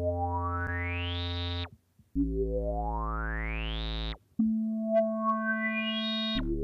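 Vitalium software synthesizer notes played through a resonant low-pass filter whose cutoff an envelope with a long attack sweeps upward. Three held notes of about two seconds each, with a short gap between them, each with a bright resonance rising steadily through its harmonics: a rising filter sweep. The third note is pitched lower, and a fourth begins near the end.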